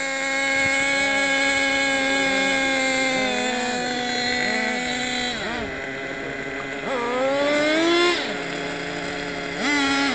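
Radio-controlled model car motor running under throttle: a steady buzzing tone for about the first five seconds, then its pitch dips and climbs as the throttle changes, with a long rising rev about seven seconds in and two short revs near the end.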